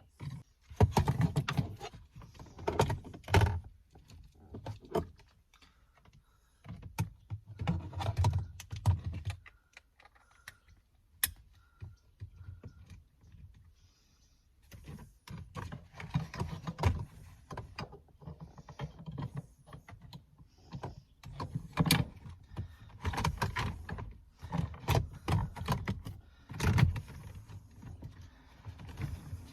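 Plastic interior trim pieces around a car's shifter being handled and pressed back into place: irregular clicks, knocks and rustling, with a quieter stretch in the middle.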